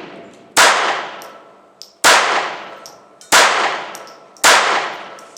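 Jennings J-22 .22 LR semi-automatic pistol fired four times, about one shot every second and a quarter, each shot followed by a long echoing decay. The pistol is cycling and firing normally, without a stoppage.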